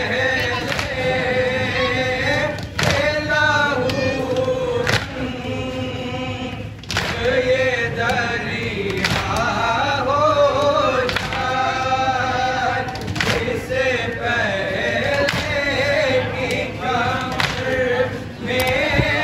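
A group of men chanting a nauha, an Urdu mourning lament, together without instruments, with a sharp beat about every two seconds.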